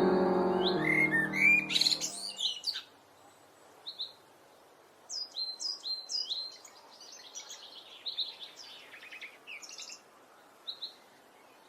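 Ambient music fading out over the first two seconds, then a blackbird singing: short bursts of high chirps and twittering notes with pauses between phrases.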